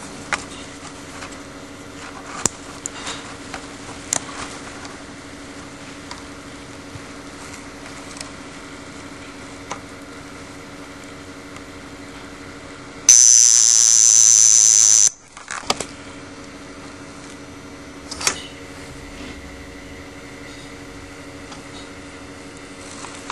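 Vulcain Alarm mechanical wrist alarm watch with an AS 1930 movement ringing: its alarm hammer makes a steady, even buzz, with a few clicks from the watch being handled. Midway, a louder and shriller sound of about two seconds takes over, then the buzz resumes.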